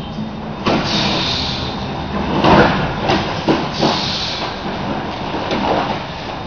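Aikido partners throwing and falling on plastic-covered mats: cloth of the uniforms swishing, with a series of thuds and slaps of bodies and feet on the mat, the loudest about two and a half seconds in.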